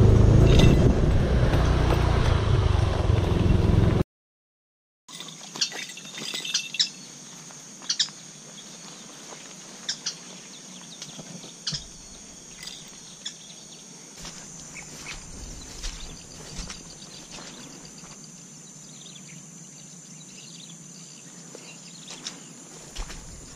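Loud wind rumble on the camera's microphone for about four seconds, cut off abruptly. After a brief silence comes quiet outdoor ambience: a steady high hiss with scattered short high chirps.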